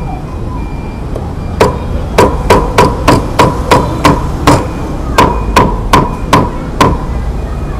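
Meat cleaver chopping roast dog meat on a chopping block: about fourteen hard strikes, roughly three a second with a brief pause midway, each with a short metallic ring, starting about one and a half seconds in.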